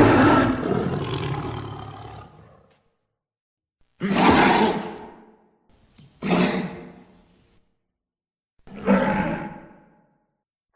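A series of four separate roar sound effects for a cartoon rhino character, one long roar fading out over a couple of seconds and three shorter ones with silent gaps between.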